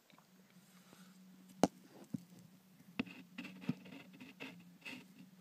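Handling of a clear plastic tarantula enclosure: a few sharp plastic clicks and taps, the loudest about one and a half seconds in, then a run of softer ticks and rustles, over a faint steady hum.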